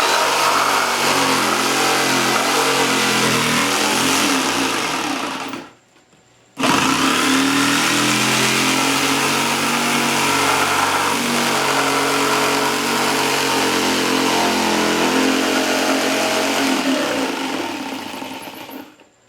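An electric power tool runs under load, cutting a hole in a speaker box. It runs in two stretches with a brief stop about six seconds in, and fades out near the end.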